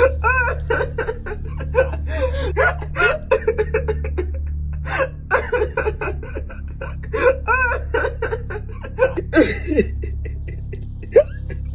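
A man laughing in short, broken bursts over a steady low drone.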